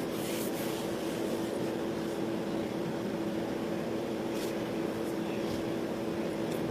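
Steady background hum with one droning tone and a faint hiss, even in level throughout; a few faint clicks sound in the second half.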